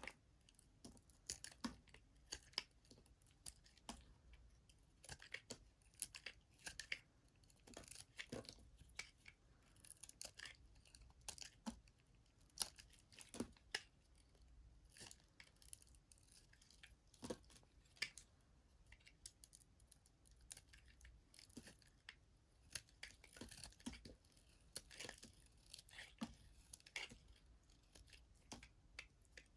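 Knife cutting through a bar of soap: a quiet, irregular series of short, crisp clicks and crackles as the blade slices and pieces break away.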